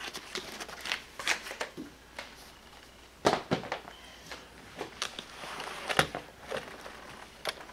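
Stamp albums and folders handled on a felt-covered table: paper and plastic pages rustling and sliding, with irregular clicks and knocks, the loudest a little past three seconds in and at six seconds.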